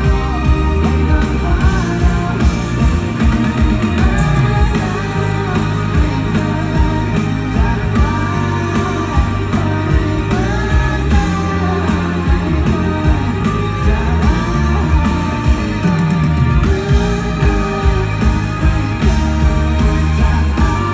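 Live pop-rock band playing, with singing over guitars and a steady drum beat.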